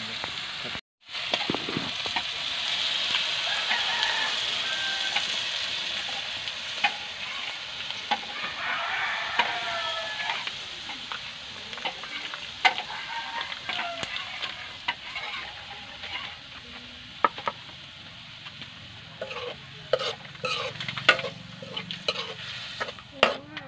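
Chopped meat frying and sizzling in a hot metal wok, stirred and scraped with a spatula. The sizzle is strongest in the first few seconds, and the clicks of the spatula scraping and knocking on the wok come more often in the second half. The sound cuts out for a moment about a second in.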